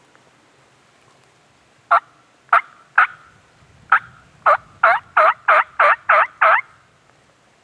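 A bird calling: eleven loud notes, the first few spaced irregularly, then quickening to about three a second before stopping.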